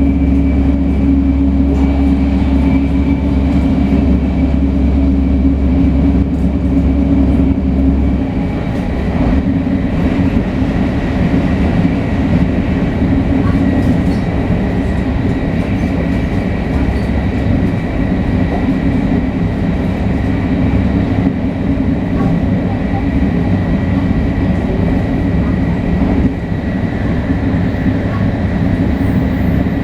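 Shinkansen 500 series train running, its Toshiba GTO-VVVF traction equipment giving a steady high whine over the rail noise. A deep hum underneath drops away about eight seconds in.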